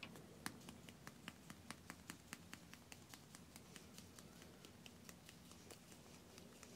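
Faint, rapid light clicking, about four clicks a second, thinning out after about four seconds.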